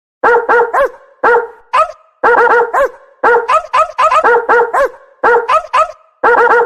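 Dog barking repeatedly: short, high barks in quick runs of two to four, each run followed by a brief pause.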